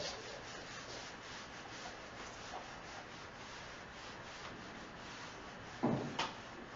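Handheld whiteboard eraser rubbing across a whiteboard in repeated back-and-forth strokes. A louder knock comes about six seconds in.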